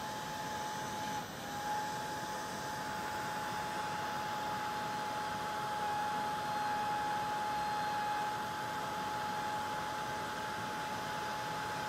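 Ranger Heat It craft heat tool running, a steady rush of blown air with a constant whine from its fan, as it heats embossing powder until it melts.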